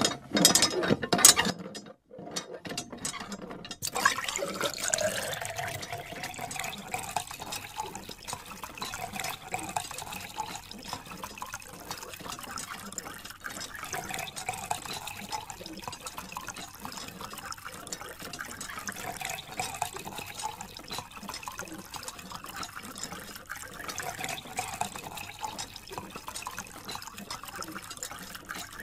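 A few sharp knocks at the start, then from about four seconds in a steady trickle and splash of water pouring in a thin stream from a small clear plastic tube onto plastic toy tractors and into a shallow puddle.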